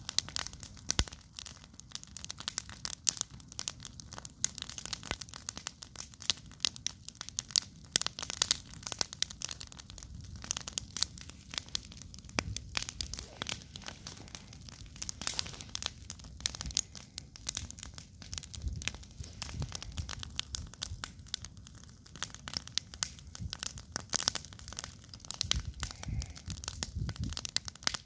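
Wood campfire crackling, with dense, irregular snaps and pops throughout, over a low rumble.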